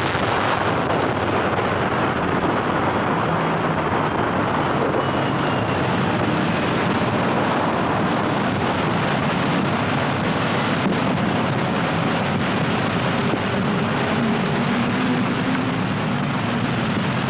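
Continuous roar of a huge underwater rock-demolition blast and the mass of water and rock it throws up, on an old newsreel soundtrack: one even rush of noise that holds steady without breaks.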